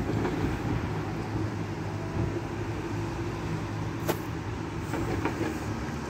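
Steady rumble of wind and city traffic, with a sharp click about four seconds in.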